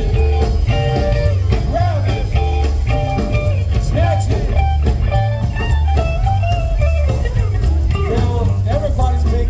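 Rockabilly band playing live through a stage PA: electric and acoustic guitars over a walking upright bass and drums, with a steady, heavy low end.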